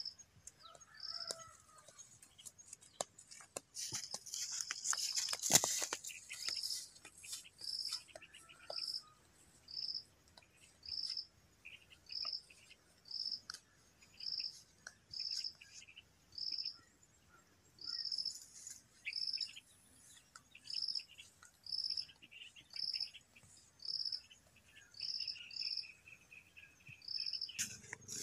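A short, high chirp repeating steadily about once a second. Between about three and six seconds in, a burst of rustling and crackling clicks is the loudest sound.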